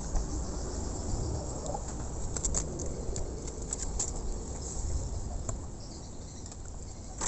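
Outdoor ambience: a steady low rumble with scattered short, high-pitched clicks and chirps.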